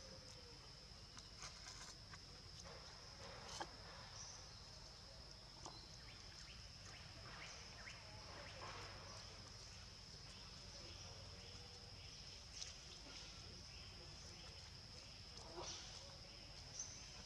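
Faint, steady, high-pitched drone of forest insects, with scattered soft clicks and rustles.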